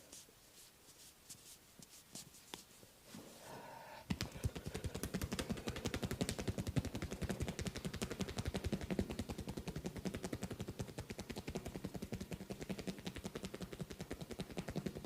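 Rapid, steady percussion from a masseur's hands on the head during a head massage: a fast, even run of sharp taps that starts about four seconds in, after a few scattered faint clicks.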